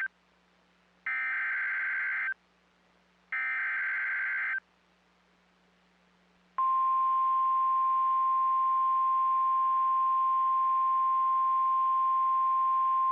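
NOAA Weather Radio EAS alert: two bursts of SAME header data tones, about a second each, the first just after the start and the second about three seconds in, follow the tail of an earlier burst. Then a single steady 1050 Hz warning alarm tone starts about six and a half seconds in and holds.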